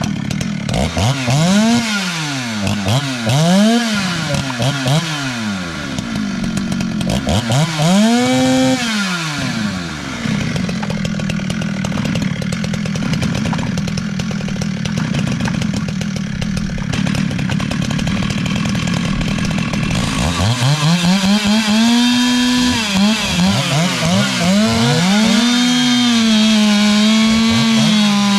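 Ported two-stroke Stihl chainsaws (an 034 and an 036) racing: the engines start loud all at once and are revved up and down several times, then run at a steady high pitch for about ten seconds, then rise and fall in pitch again near the end.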